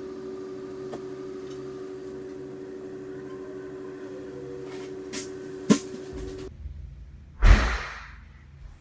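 A steady low hum with two sharp clicks, the hum cutting off abruptly; then a heavy door slams with a loud bang that dies away over about half a second.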